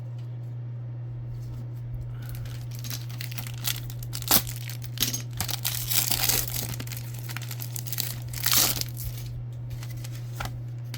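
Plastic wrapper of a 1994 Action Packed football card pack crinkling and tearing as it is opened, in bursts from about two seconds in with a couple of sharper snaps, over a steady low hum.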